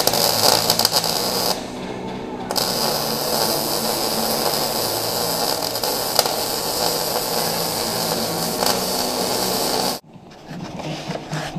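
MIG welding arc running as steel reinforcement plates are welded onto a BMW E36's underbody: a short bead of under two seconds, a pause of about a second, then a longer bead that stops abruptly about ten seconds in.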